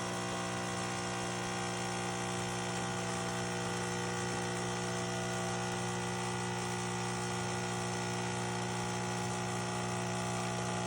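Automatic espresso machine's water pump buzzing steadily through its brew cycle, while only a little coffee drips out instead of a full pour.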